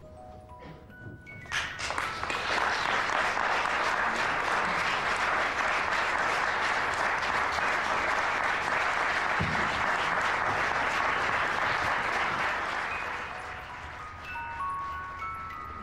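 Audience applause that swells in about two seconds in, holds steady and dense, and dies away near the end. A few short, high musical notes sound just before it starts and again as it fades.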